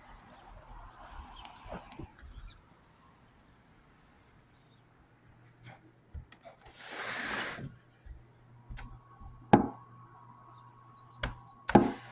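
A door or window being handled: a rustling swish, then a sharp knock and a few clicks near the end. A faint steady hum comes in about two-thirds of the way through.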